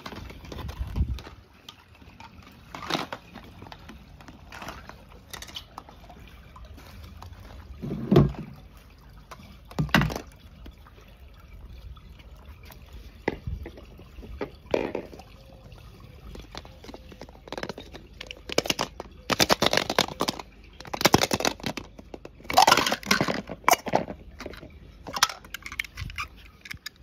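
Water splashing and trickling, with scattered knocks and scrapes of small toy cars, and a quick run of louder splashes about twenty seconds in.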